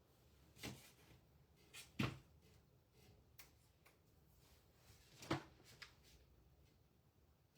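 Faint, light knocks and taps from craft pieces being handled and set down on a work surface: three louder ones about a second apart early on and one near the middle, with a couple of softer ticks between.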